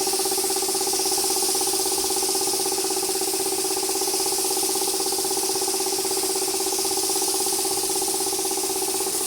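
A machine running steadily: a constant mechanical hum with a fast flutter and a hiss over it.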